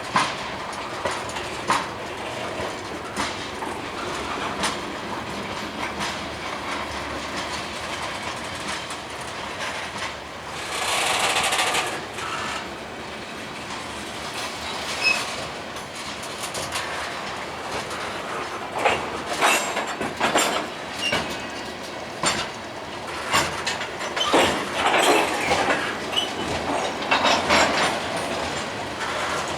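Train cars rolling slowly past, their wheels clacking irregularly over the rail joints, with a brief hiss about eleven seconds in.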